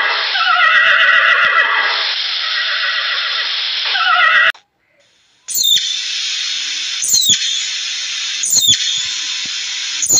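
Horses whinnying: two falling whinnies in the first two seconds, then a breathier stretch that is cut off about four and a half seconds in. After a second of silence comes a steady hiss with a short sharp chirp about every second and a half.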